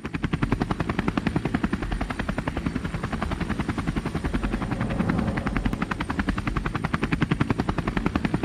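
Propeller sound effect: the rapid, evenly pulsing chop-and-drone of spinning propeller blades, held steady at about a dozen beats a second.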